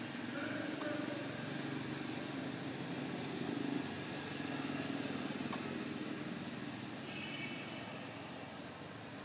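Steady hum of a motor vehicle engine over outdoor background noise, easing off slightly near the end, with a faint short high chirp about seven seconds in.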